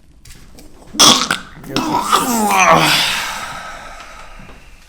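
A man's sudden sputtering, cough-like burst of breath about a second in, then a long groan falling in pitch and fading away. It is his reaction as a balloon is inflated up inside his nasal passage in a nasal-specific chiropractic treatment, a tough one to get through.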